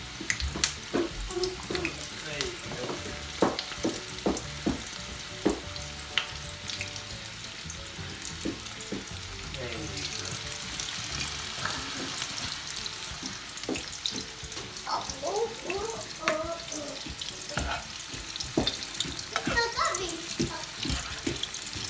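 Sprout and onion bhaji batter deep-frying in hot oil in a wok, with a steady sizzle. Scattered sharp clicks and knocks sound through it.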